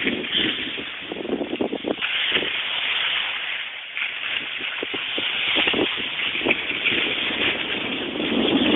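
Skis sliding over spring snow on a downhill run: a steady hiss with uneven rough scrapes, and wind buffeting the microphone.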